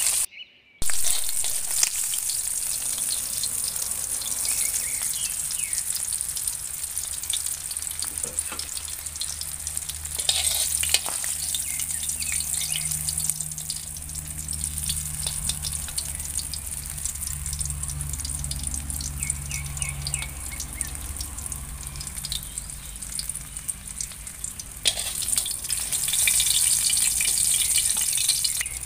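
Short mackerel sizzling and crackling as they shallow-fry in hot oil in a wok, fried until just cooked. A few sharp clicks of metal tongs against the wok as the fish are lifted out.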